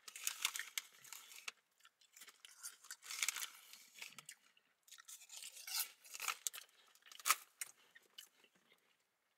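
A person chewing crunchy potato chips: irregular bouts of crunching with short pauses between mouthfuls.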